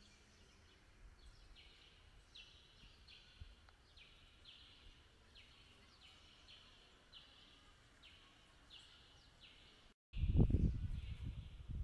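Faint, high buzzy call repeated about twice a second from an unseen animal, bird or insect. Near the end, after a brief cut-out, loud low rumbling noise takes over.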